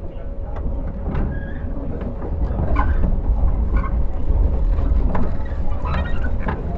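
Cabin running noise of a JR 115 series electric train, heard inside its motor car: a heavy low rumble from the wheels and MT54D traction motors, with scattered clicks and short squeals from the running gear. It grows louder about two seconds in.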